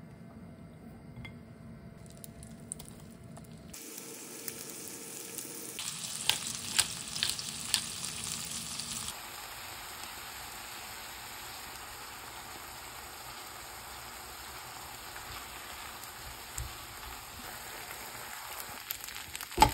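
Food frying in a pan: a steady sizzle that starts a few seconds in, with a few sharp clicks in the middle.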